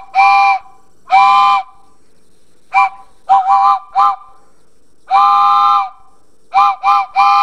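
Steam locomotive chime whistle, several notes sounding together, blown in an irregular run of short toots and longer blasts. The longest blast comes about five seconds in.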